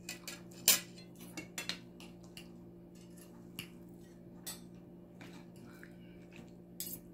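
Cutlery clinking on plates and bowls while eating: scattered light clicks, busiest in the first two seconds and then sparse, over a faint steady hum.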